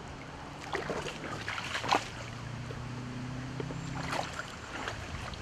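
River water rushing and lapping at the bank, with a few short splashes or knocks about one, two and four seconds in and a faint low hum underneath.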